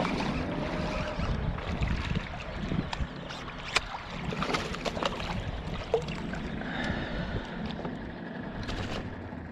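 Water sloshing and lapping around a float tube, with scattered small clicks and knocks.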